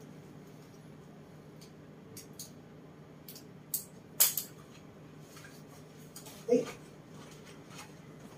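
Steady low hum of a quiet room, broken by light clicks and taps as a cat is picked up and handled on a bed, the sharpest a little after four seconds. About six and a half seconds in comes one brief low vocal sound from an animal.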